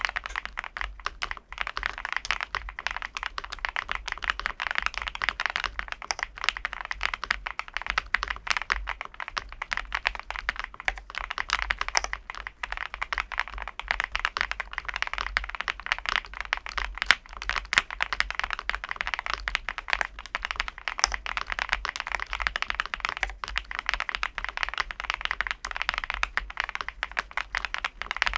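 Fast, continuous typing on a MonsGeek M2 V5 VIA mechanical keyboard, a gasket-mounted board in an aluminium case: a dense, unbroken stream of keystroke clicks.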